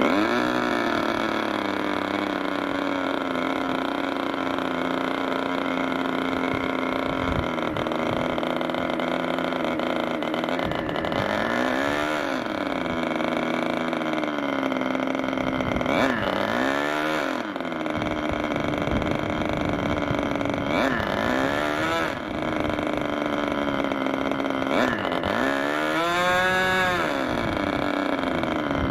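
Meteor 60 MkII two-stroke glow engine turning an 11x7 propeller on a test stand: it catches as the electric starter is applied and runs on steadily. Its revs climb and fall back several times, the longest climb near the end.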